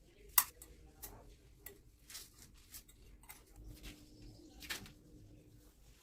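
Scattered sharp clicks and knocks of hand work on a bathroom spout fitting, the loudest about half a second in, with a few lighter taps after it.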